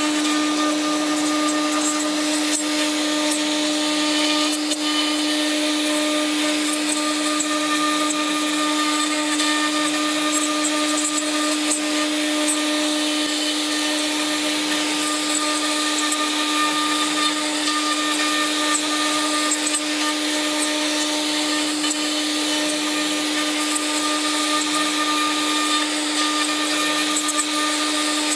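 LH-8101 CNC router's spindle running at speed: a steady high hum over an even hiss, unchanging throughout.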